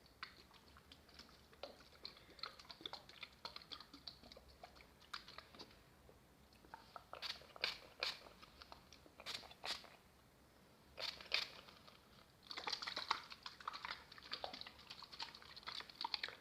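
Close-miked ASMR tapping and scratching on objects: scattered sharp taps, a few louder clusters of them about seven and eleven seconds in, then a dense stretch of fine crackling for the last few seconds.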